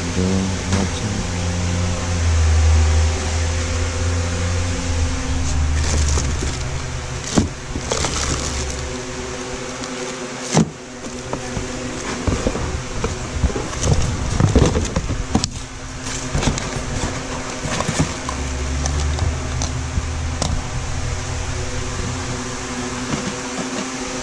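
Household items being rummaged through by hand in a cardboard box and a plastic bin: rustling plastic bags, shifting cords and boxes, and scattered sharp knocks. A steady machine hum runs underneath.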